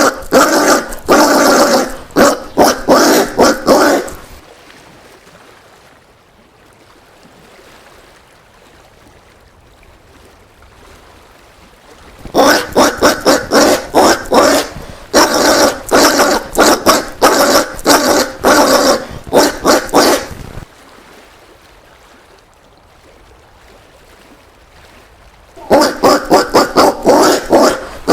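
Collared peccary (caititu) calling: rapid runs of short calls, several a second, in three bouts separated by quiet gaps of several seconds.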